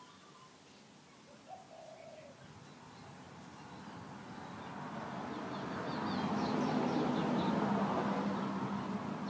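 Birds calling outdoors: a short arched call about a second and a half in, and quick high chirps later. A low rumble with a steady hum swells over several seconds, loudest about two-thirds of the way through, then eases off.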